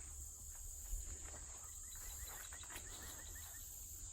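Steady high-pitched drone of insects in the woods, with a low background rumble. A little past the middle comes a quick run of about eight short chirps, and a few soft knocks sound in the first second and a half.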